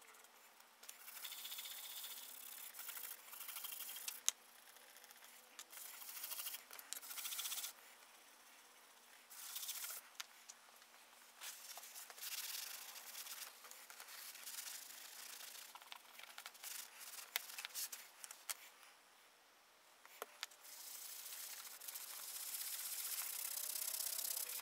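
Cleaner being rubbed onto a small brass plate, the tender deck of a brass model locomotive, to lift tarnish: scratchy rubbing strokes come in irregular bursts a second or two long with short pauses between them. There is one sharp click about four seconds in.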